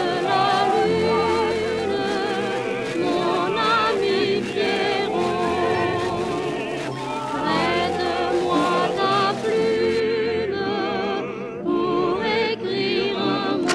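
Recorded music with operatic singing, the voices held with a wide vibrato. About ten seconds in the sound turns duller, its high end cut off.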